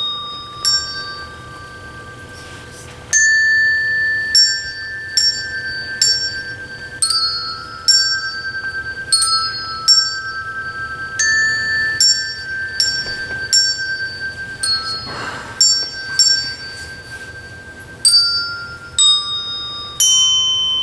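A children's bell choir ringing handbells in a slow tune, one struck note at a time, roughly one or two a second, each note ringing on as the next sounds.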